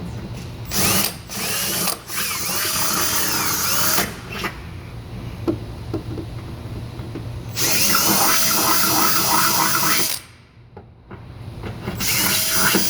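Power drill enlarging a fastener hole in a car bumper with a bigger bit, run in several trigger pulls, the motor's whine rising and falling with each pull. The longest, loudest run comes about eight to ten seconds in, and a short one near the end.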